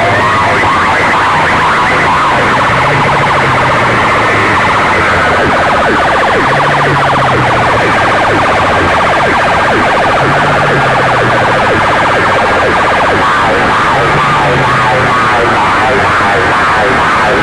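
Loud electronic siren-like warbling, continuous, over a low pulsing tone that comes and goes every three to four seconds.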